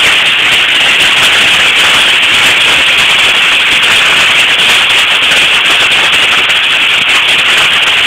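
Heavy hailstorm: hailstones pelting down in a dense, continuous clatter of countless small impacts, steady and very loud, through a cellphone microphone.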